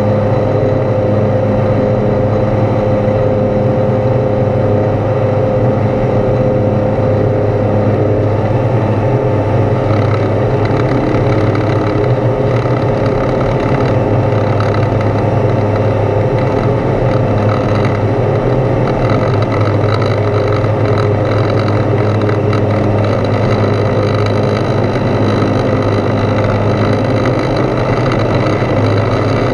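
Foxbat A22LS's Rotax 912 engine and propeller running steadily at climb power, heard inside the cabin as a loud, even drone.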